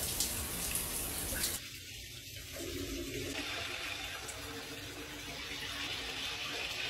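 Shower running: a steady hiss of spraying water.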